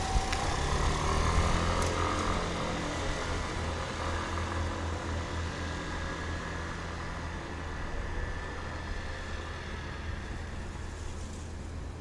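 A train's rumble with a steady low hum from its machinery, slowly fading as it moves away after crossing the level crossing.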